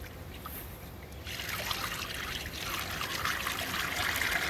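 Sugar syrup pouring from a plastic bucket into a plastic hive-top feeder: a steady trickling splash that starts about a second in and grows louder.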